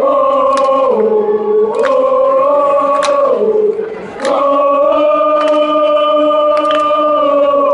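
Pep band's brass playing long held chords that change pitch a few times, one dropping out briefly about four seconds in before a long final chord, with several sharp drum or cymbal hits and the crowd's voices mixed in.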